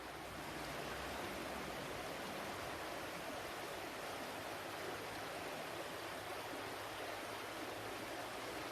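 Flowing water: a steady, even rush with no breaks or changes.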